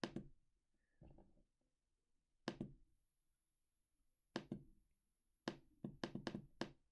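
Computer mouse button clicking: a few single clicks a second or two apart, then a quick run of about five clicks near the end.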